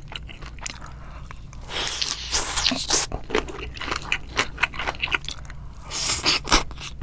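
Close-miked mukbang eating of shrimp and fried instant noodles: many small wet chewing and biting clicks, with long noisy slurps of noodles about two seconds in and again near the end.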